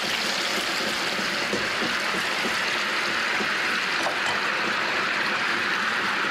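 Pieces of tofu deep-frying in hot oil in a wok: a steady, dense sizzle as the water in the tofu boils off in the oil.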